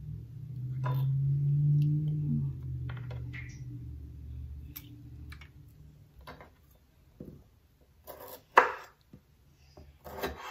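A kitchen knife knocks against a wooden cutting board several times as calamondin are cut in half, with one sharp knock near the end. Under the first half, a low droning hum swells and then fades away.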